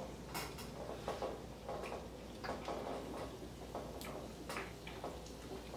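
A person's throat gulping while chugging a fizzy soda: soft, short clicks about two or three times a second.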